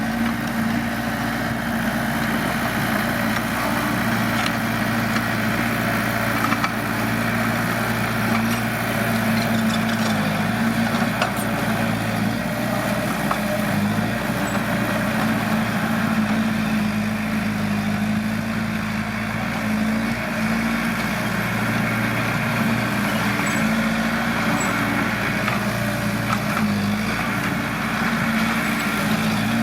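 Heavy diesel engine of earthmoving machinery running steadily at working speed, its pitch dipping briefly about halfway through and again near the end.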